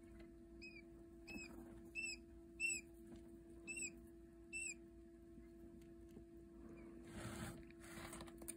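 Quail chicks peeping: six short, high chirps, each rising then falling, in the first five seconds. Near the end there is a soft rustling, over a faint steady hum.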